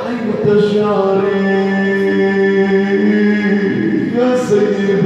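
A man chanting an Arabic supplication into a microphone in a slow, melodic style, drawing out long held notes. There is a short break with a sharp breath or sibilant a little past four seconds in.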